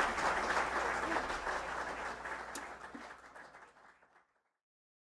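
Audience applauding, dying away steadily and fading out about four seconds in.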